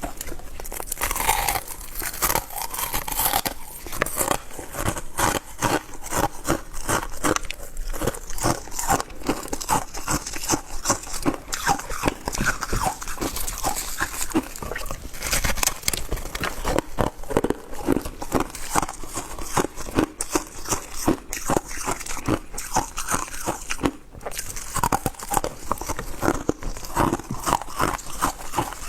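Close-up crunching and chewing of shaved ice: a quick, irregular run of crisp crunches, many to the second, with one brief pause late on.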